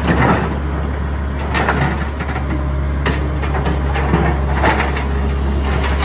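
Liebherr 934 crawler excavator's diesel engine running steadily while its demolition attachment breaks into a steel structure, with irregular clanks and knocks of metal and debris scattered throughout.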